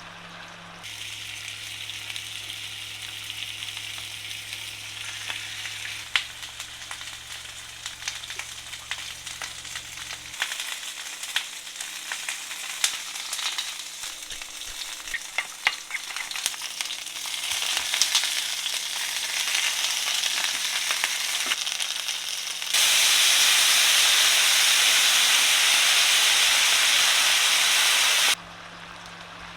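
Chicken sizzling as it fries in a pan, with scattered spatters and crackles. The sound changes abruptly at a few cuts, and near the end a louder, steady hiss lasts about five seconds.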